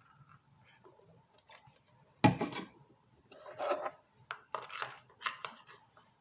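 A sharp knock about two seconds in, then repeated short scraping and clinking of a spoon in a bowl as slime ingredients are stirred together.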